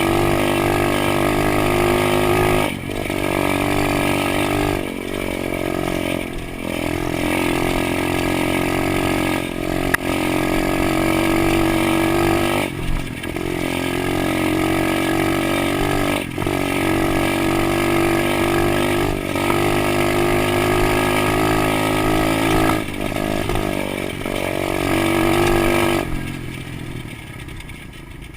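110cc single-cylinder four-stroke pit bike engine running hard at high revs, its note dipping briefly every few seconds as the throttle is eased or a gear is changed. The engine sound falls away near the end.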